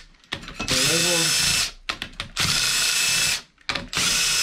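Cordless drill/driver spinning bolts out of a Kawasaki four-stroke jet ski engine's cylinder head in three short runs of about a second each, with small metallic clicks between them.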